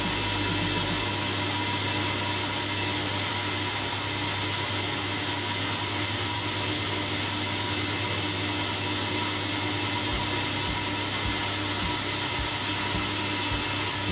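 Table saw running steadily, its blade cutting a wooden blank that a cordless drill slowly turns against it in a table-saw lathe jig to shape a large dowel. From about ten seconds in, a soft knock repeats a little under twice a second.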